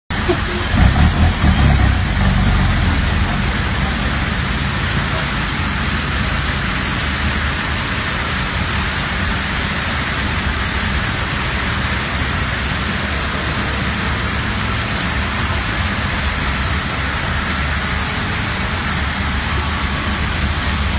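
A six-wheel diesel dump truck's engine running steadily under a dense hiss, a little louder for the first two seconds.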